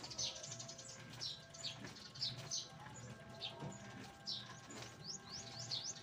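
Small birds chirping rapidly in quick high sweeps, several calls a second, over a faint steady low hum.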